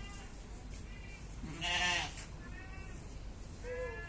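Goats bleating several times in short, high-pitched calls, with one louder, lower bleat about halfway through.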